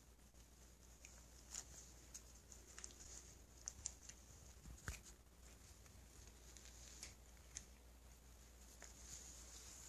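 Faint, irregular light taps and scuffs: a cat batting and pouncing on a toy mouse, with one stronger knock about halfway through.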